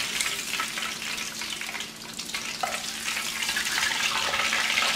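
Coated hake fillets frying in a large aluminium pan of oil at medium heat: a steady, fine crackling sizzle.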